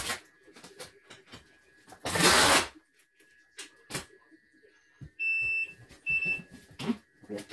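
Control panel of a CNY embroidery machine beeping twice, a longer beep then a shorter one, about five and six seconds in, amid scattered small clicks of handling and button presses. A short, loud rush of noise comes about two seconds in.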